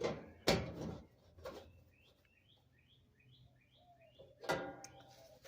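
Sharp knocks and clatter from dryer panels and screws being handled during reassembly, the loudest about half a second in and again near the end. Between them a bird gives a quick run of six or seven high chirps.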